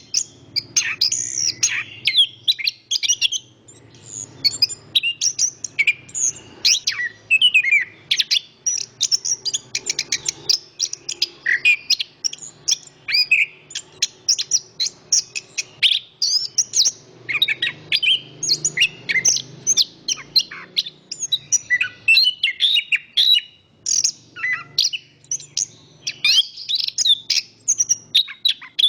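Chestnut-capped thrush (anis kembang) singing a rapid, unbroken stream of short high chirps and whistled phrases, with a faint low rush of wind underneath.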